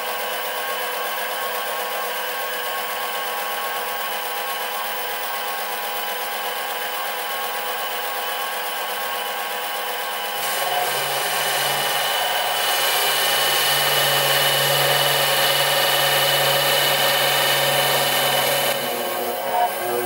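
Sieg SC3 mini lathe running at about 1200 RPM with a steady motor whine. About halfway through, the parting tool starts cutting into the aluminium stock and a cutting hiss and a low hum join in, louder, until shortly before the end.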